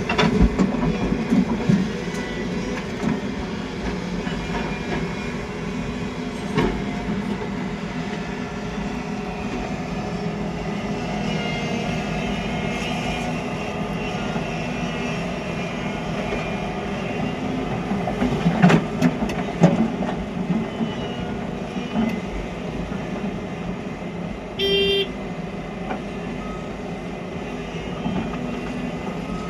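Heavy diesel excavator engine running steadily under load, with several loud knocks and clanks, the heaviest cluster about two-thirds of the way in, and one brief beep near the end.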